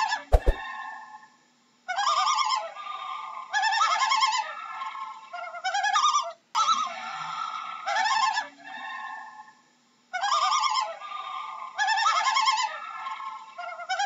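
Common loon calling in rapid, quavering tremolo phrases of about a second each, repeated every one to two seconds.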